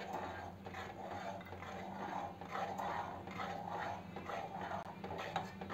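Metal spoon stirring thickened milk in an aluminium pot, scraping the pot in repeated soft strokes about two or three a second, over a low steady hum. The sugar is being stirred in so that it dissolves without lumps.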